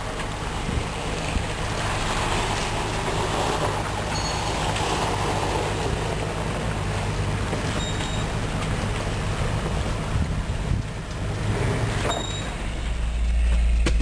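Jeep Wrangler Unlimited's V6 engine running slowly as the Jeep crawls through a shallow creek, with a steady rush of water and tyres on wet gravel. About twelve seconds in it changes to a louder low engine drone heard from inside the Jeep's cabin.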